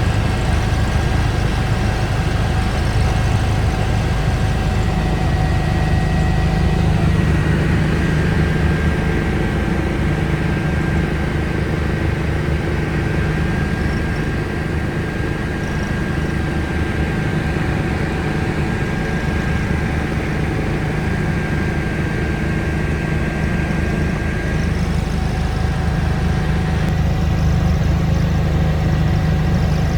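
Eurocopter EC145 twin-turbine helicopter in flight, heard from inside the cabin: a steady rotor and engine drone with a thin high turbine whine held on one pitch.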